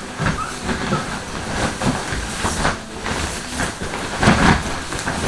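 A family-size sleeping bag over inflatable air mats, its fabric rustling and bumping irregularly as a child thrashes around inside.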